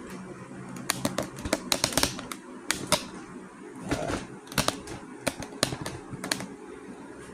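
Cardboard box being opened and its contents handled: an irregular run of sharp clicks, taps and knocks, thickest in the first half.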